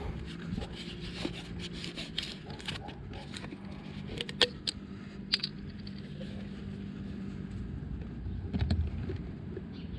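Gear oil being poured from a plastic quart bottle into a motorcycle's primary chaincase: light scrapes and rubbing of the bottle against the fill opening, with a few sharp plastic clicks about halfway through, over a faint steady low hum that stops about eight seconds in.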